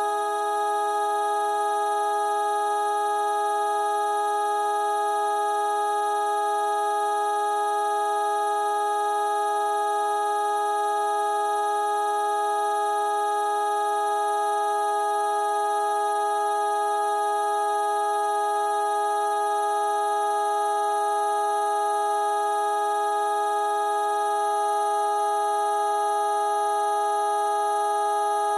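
Synthesized vocoder sound effect holding one steady, unchanging chord of many pitches.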